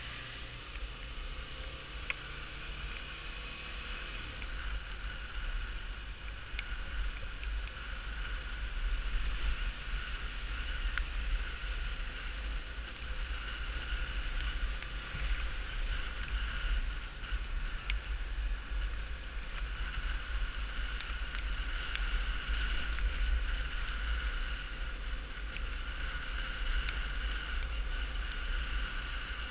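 Single-cylinder Honda XR250 Tornado motorcycle riding along a wet gravel road, its running heard under heavy wind buffeting on the microphone, with a few faint ticks scattered through.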